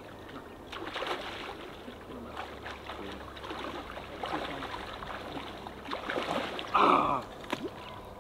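River water running, with small splashes, and a brief loud call about seven seconds in.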